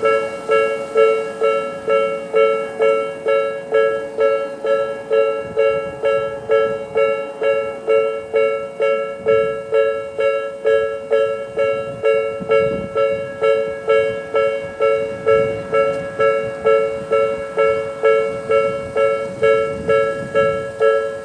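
Japanese electronic level-crossing warning bell of the Tobu 'sound B' type, sounding from both sides of the crossing: a steady repeated two-note ding, about two strikes a second, each stroke ringing and dying away.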